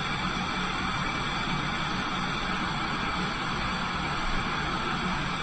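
Lampworking torch flame hissing steadily as glass is heated in it.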